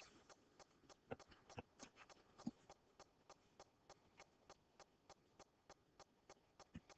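Near silence, with faint, evenly spaced ticks at about three a second.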